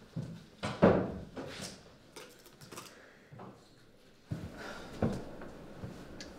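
Footsteps and an office door being opened and pulled shut, with a sharp knock about a second in as the loudest sound, then a few quieter clicks and one more thump later on.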